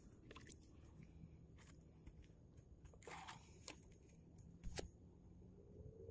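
Near silence with a few faint scattered clicks and a brief rustle about three seconds in.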